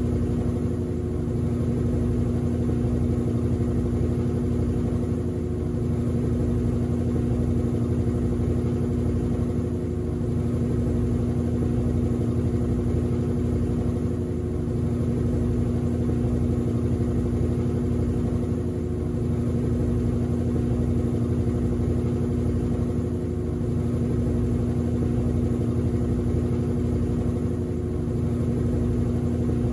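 Top-loading washing machine on its spin cycle, the tub spinning at speed: a steady motor hum with a low, evenly pulsing throb beneath it.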